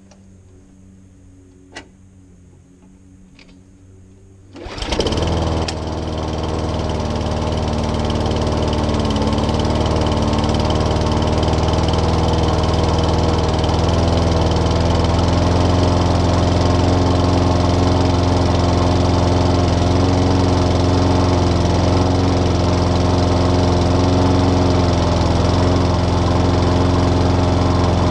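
Walk-behind petrol lawnmower engine catching about four and a half seconds in, then running steadily at a constant speed.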